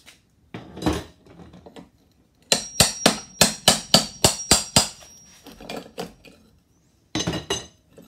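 Claw hammer striking a steel flat pry bar to drive it behind a metal electrical box nailed to a wooden stud: a run of about nine quick, ringing metal-on-metal blows, a few a second. A short scraping creak follows near the end as the bar levers at the box.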